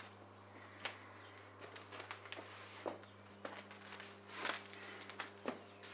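Faint, irregular soft clicks and rustles over a low steady hum, with a louder rustle about four and a half seconds in.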